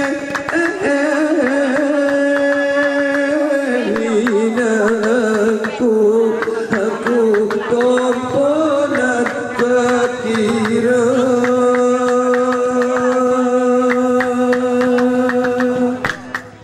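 Didong Gayo group singing: men's voices holding long, wavering notes together, with hand claps beating under them. Near the end the singing stops and only the claps go on.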